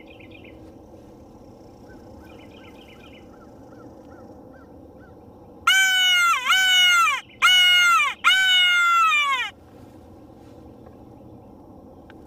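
Hunter's crow call blown in four loud caws, each falling in pitch, the last drawn out longest. It is used as a locator call to shock a gobbler into gobbling.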